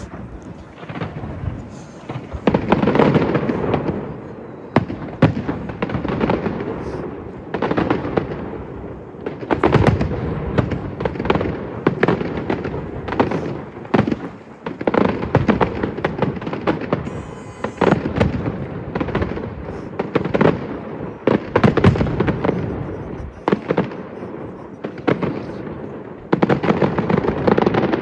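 Fireworks display: a rapid run of sharp bangs and booms, some in quick clusters, over continuous crackle.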